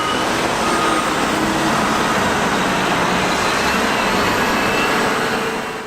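Front loader engine running steadily, a dense even noise that stops abruptly at the end.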